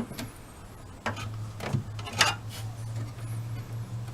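A few sharp clicks and knocks of plastic parts being handled as a rear-projection TV's lamp assembly and access door are worked into place, the loudest about two seconds in. A steady low hum comes in about a second in.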